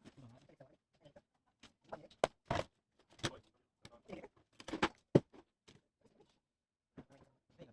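Scattered clicks and taps with a few short scraping bursts, from handling plastic laptop parts and small tools. The sharpest clicks come about two seconds in and again about five seconds in.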